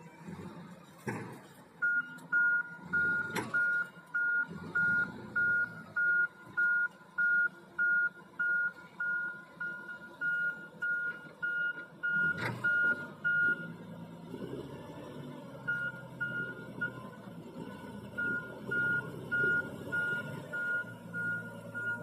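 Wheel loader's reversing alarm beeping about twice a second over the low running of its diesel engine, breaking off briefly twice in the second half. A few sharp knocks, one about halfway through.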